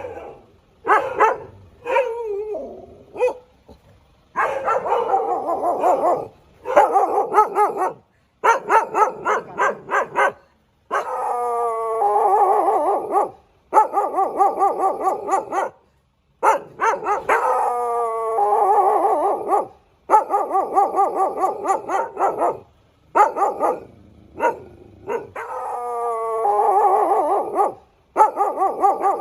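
A dog barking and howling: runs of quick short barks alternate with drawn-out calls that fall in pitch. The sound is chopped into segments that cut off abruptly.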